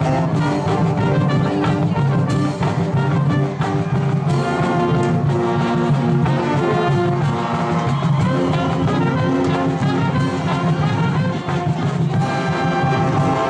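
Marching band playing, with brass instruments carrying the melody over held chords.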